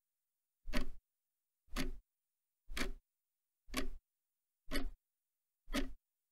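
Evenly spaced ticks, one about every second, six in all, with silence between them.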